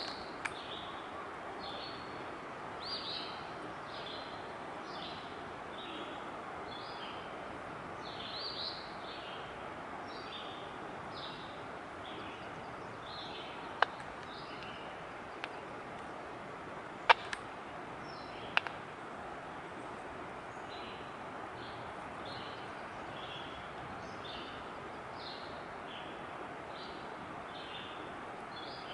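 Steady rush of river rapids, with a bird calling over and over in short high notes about one or two a second. A few sharp clicks stand out near the middle.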